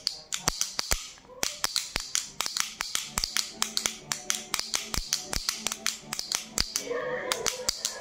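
Wooden toy pellet drum (baby rattle drum) twirled back and forth, its two beads on strings striking the drum faces in rapid sharp clacks, with a brief lull about a second in.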